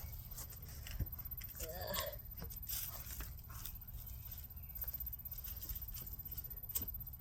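Hands digging through garden soil for potatoes: dirt scraping and crunching, with small clicks and cracks of roots and stones, the sharpest about a second in and near the end.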